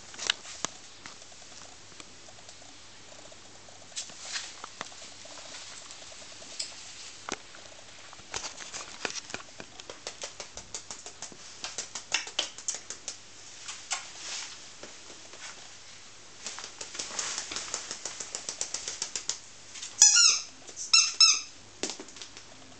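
Scattered light clicks and scuffling, then near the end a few short high-pitched yelps from a five-week-old Akita puppy.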